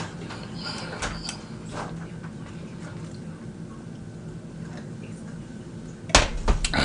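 Eating mouth noises: chewing and wet lip-smacking clicks from a man eating a fried egg roll, with a louder cluster of smacks near the end. A faint steady low hum runs underneath.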